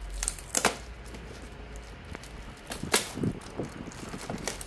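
Plastic air-column packaging rustling and crinkling as hands cut and pull it open with a snap-off utility knife, with a few sharp clicks. The loudest click comes about three seconds in.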